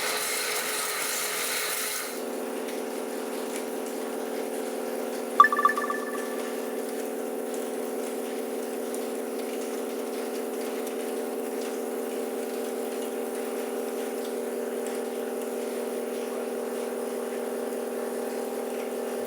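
Horizontal machining center running: a hissing whir that changes about two seconds in to a steady hum of several fixed tones. About five seconds in there is one sharp clink that rings briefly.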